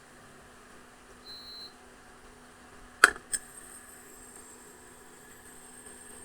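A short electronic beep, then two sharp clicks about a third of a second apart, after which a faint steady high-pitched whine sets in over a low steady hum.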